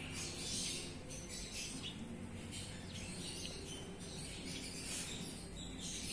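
Continuous high-pitched chirping of insects and birds in the background.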